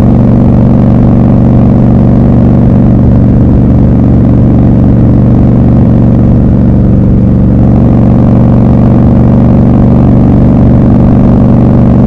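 Triumph Scrambler 1200 XC's 1200 cc parallel-twin engine and exhaust running at a steady cruise, heard from the rider's seat. The engine note holds an even pitch, softening briefly about seven seconds in.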